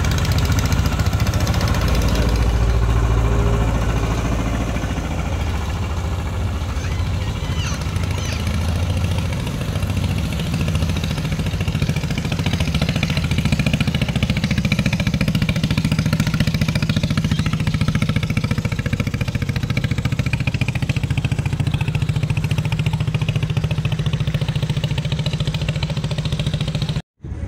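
Engines of wooden fishing boats running steadily as they pass close by on the river, one boat followed by a second. The sound cuts off abruptly near the end.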